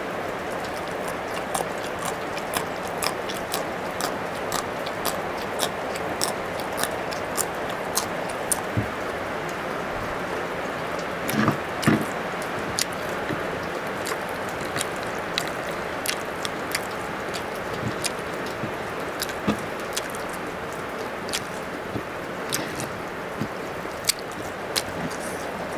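Close-miked chewing of raw long bean: crisp crunching clicks about two a second over a steady hiss. About halfway through, a couple of louder knocks as a mussel shell is handled.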